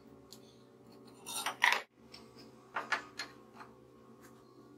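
Metal clinks and scrapes as a steel pipe is slid and turned in a steel bracket clamped in a bench vise, loudest about a second and a half in. After that a few softer knocks follow as an angle grinder is handled on a plywood board, over a faint steady hum.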